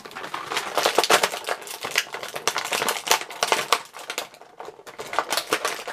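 Scissors working at a plastic tie that holds an action figure in its clear plastic blister tray: a rapid run of small snips and clicks with crinkling of the tray, pausing briefly about four and a half seconds in.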